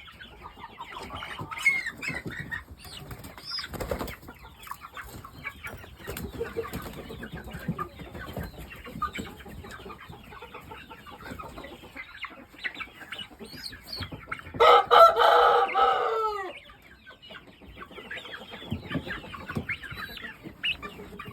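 Chickens clucking and calling, with some wing flapping. About two thirds of the way through, a rooster crows once, a loud call about two seconds long that falls in pitch.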